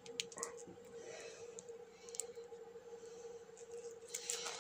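Faint handling noise from a paper-wrapped roll of new LED backlight strips: a few light clicks and rustles, with louder rustling near the end, over a steady faint hum.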